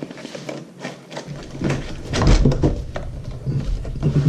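Cardboard Lego Star Wars advent calendar box being handled as its perforated door is pushed and torn open: a run of crackling, rustling and clicks that starts about a second in and is loudest in the middle.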